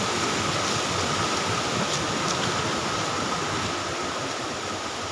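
Stream water rushing steadily, an even, unbroken noise.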